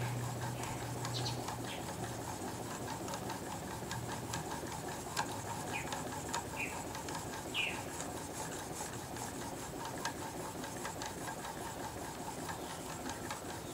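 A steel blade clamped in a sharpening jig being stroked back and forth on an extra-fine diamond stone: a steady rhythmic rasping of metal on the diamond plate, the final honing stage that raises a fine wire edge.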